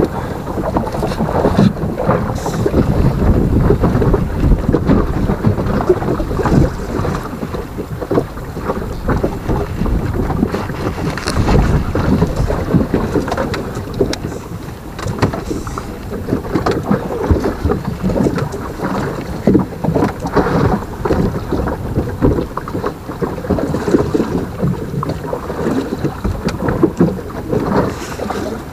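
Wind rumbling on the microphone, with irregular rustling and light knocks throughout.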